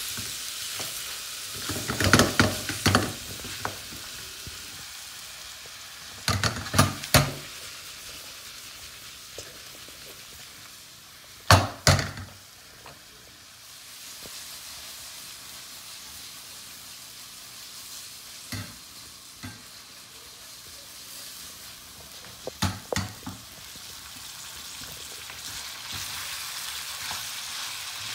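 Chicken, onions and peppers sizzling steadily in a hot wok, with a wooden spatula scraping and knocking against the pan in short bouts of stirring, six times over.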